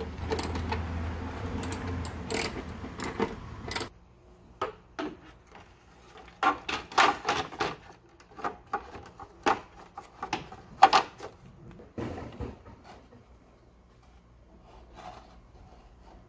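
Hard plastic parts of a 2017 Nissan Rogue tail light being handled: rubbing and scraping for the first few seconds, then a run of sharp plastic clicks and knocks as the bulb socket and lamp housing are worked into place, fading to a few faint clicks near the end.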